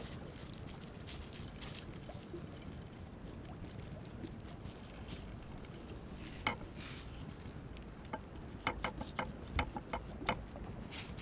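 Coarse salt crunching and scratching under hands rubbing it into raw goose skin, in short crisp clicks that come thicker in the last few seconds, over a steady low rumble.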